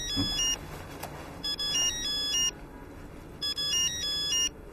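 Mobile phone ringtone: a short electronic melody of quick stepped notes, played three times, each about a second long with a pause between.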